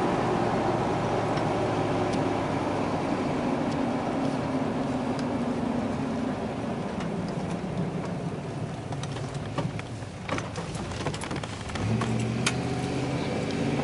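GMC Sierra pickup's engine and aftermarket exhaust (OBX headers, Dynomax Bullet muffler, Magnaflow, cutout closed) heard from inside the cab while driving: a steady drone that fades as the truck slows and coasts. A few light clicks come near the end, then the engine note picks up again as it accelerates.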